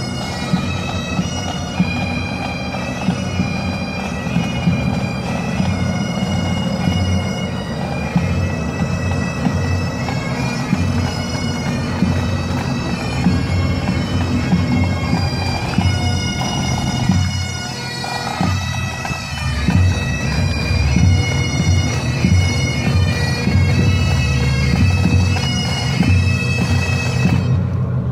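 Bagpipes playing a tune over their steady drones, with a continuous low rumble underneath.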